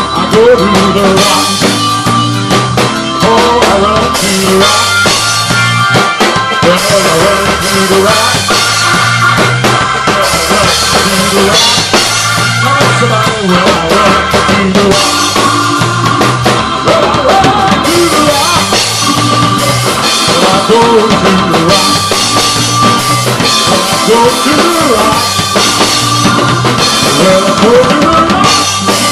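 A drum kit and an electric keyboard playing an instrumental passage of a gospel song: a steady kick-and-snare beat with cymbals under sustained keyboard chords and a moving melody line.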